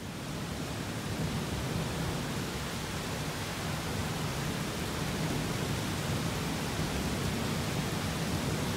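Steady, even hiss of heavy rain in a thunderstorm, with no distinct thunderclap.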